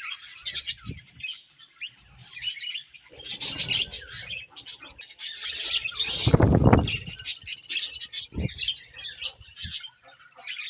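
A group of budgerigars chirping and chattering in quick, high, overlapping calls. Low rustling noises come in about three seconds in and again, loudest, about six seconds in.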